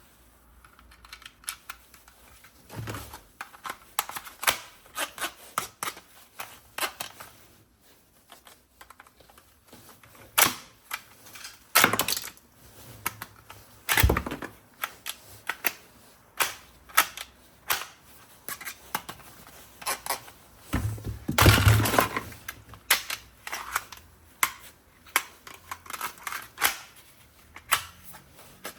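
Plastic toy gun being handled and worked, giving irregular sharp clicks and clacks, with a few heavier knocks about three seconds in, near the middle and about two-thirds of the way through.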